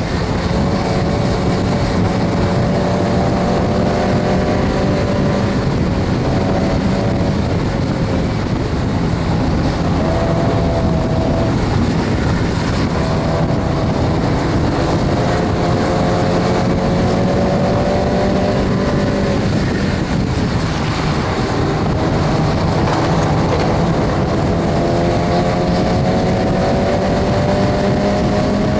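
Stock Mazda MX-5 Miata's four-cylinder engine heard from inside the car at racing pace. Its pitch climbs under acceleration and drops back several times, over steady wind and road noise.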